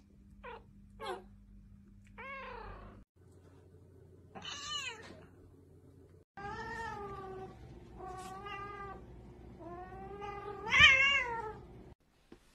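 Domestic cats meowing: a few short meows, then a single meow, then longer drawn-out meows that waver in pitch, the loudest near the end.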